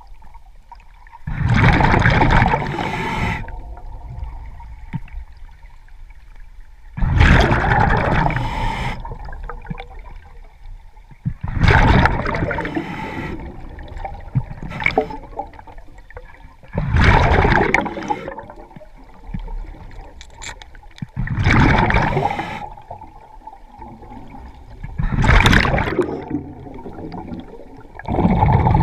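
Scuba diver breathing underwater through a regulator: exhaled bubbles rush out in a loud burst about every four to five seconds, six times, with quieter gurgling between breaths.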